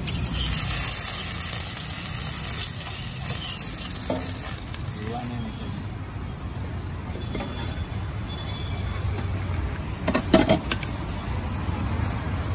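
Water sizzling on a hot iron dosa griddle as it is scraped with a spatula and wiped down, the hiss strongest in the first couple of seconds. A short cluster of knocks comes about ten seconds in.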